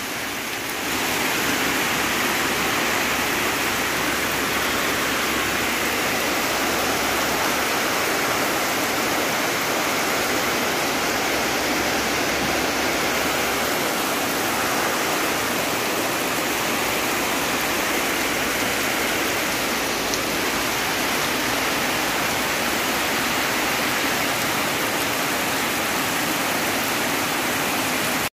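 Heavy typhoon rain pouring down on floodwater and leaves: a steady, unbroken hiss.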